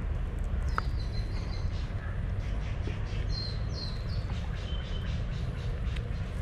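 Birds chirping in the background, several short high calls, over a steady low rumble.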